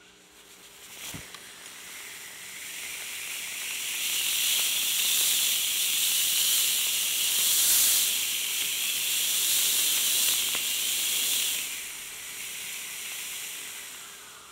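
Small 3D-printed resin-propellant solid rocket motor with a graphite nozzle burning on a thrust stand: a single click about a second in, then a hiss that builds over a few seconds, holds for about eight seconds and drops off near the end. It is a weak burn: the grain isn't burning the way it should.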